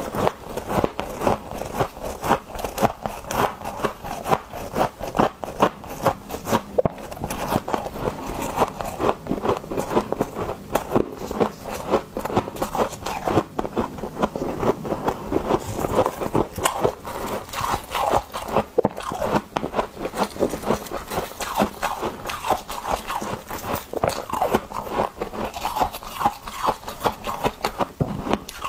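Someone biting and chewing chunks of ice close to the microphone: a continuous run of crisp crunches and crackles.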